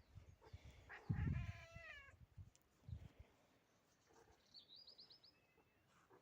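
Domestic cat meowing once, a call about a second long that falls slightly in pitch, with low handling thumps around it. Near the end comes a quick run of faint high chirps.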